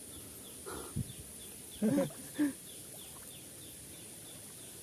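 Steady high-pitched insect drone in the background, with a soft thump about a second in and two short vocal sounds, like grunts, around two seconds in.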